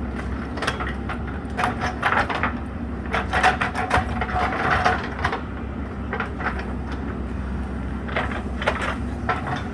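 JCB 3DX Super backhoe loader's diesel engine running steadily under load, with irregular clusters of knocks and scrapes from the bucket working soil.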